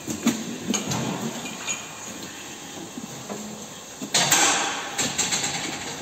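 Clanks and knocks from a steel cattle restraining crate as a cow is let out and moves through it, with a loud rushing noise about four seconds in that lasts a little over a second.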